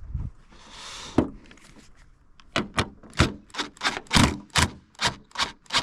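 Bolts on a plastic snowflap being tightened with a hand tool: a brief scrape about a second in, then a run of sharp clicks, about three a second, through the second half.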